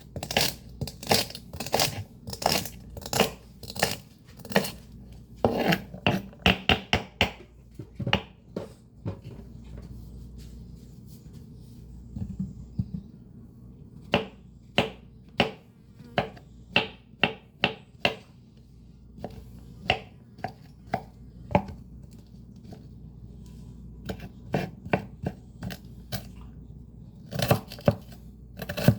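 Greens being chopped: runs of sharp chopping strikes, about two a second, with a few seconds' pause midway and then shorter runs, over the steady low hum of a fan.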